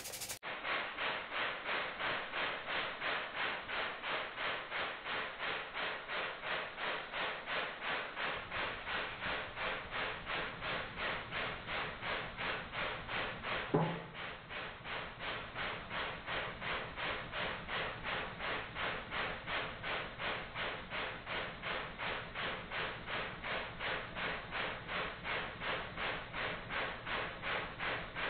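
Slowed-down sound of a hydraulic press running as its ram closes on an aluminium drink can. It is a dull, muffled pulsing of about two beats a second, with a brief falling-pitch sound about halfway through.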